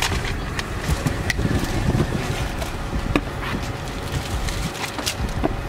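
Car idling with a door open, a steady low rumble. Several light knocks and rustles come from a person climbing out and handling a plastic-wrapped package.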